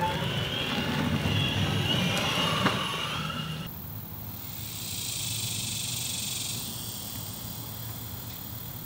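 A car driving. After a sudden cut a little over three seconds in, a steady hiss lasts about two seconds.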